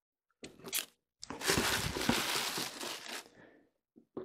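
Board-game boxes, foam blocks and a plastic-wrapped box being pulled out of a cardboard shipping carton: packaging rustling and scraping. There is a short rustle about half a second in, then about two seconds of steady rustling and scraping with a few light knocks.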